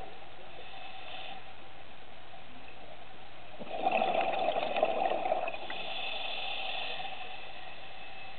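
Scuba diver's exhaled breath bubbling out of the regulator underwater, a loud gurgling rush about four seconds in that lasts nearly two seconds, followed by a softer hiss.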